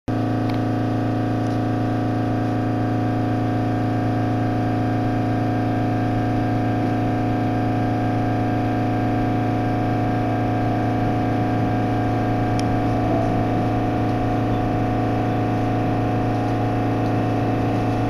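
Running noise inside an electric train carriage: a steady hum made of several unchanging tones, the train travelling at an even speed. A faint click about twelve seconds in.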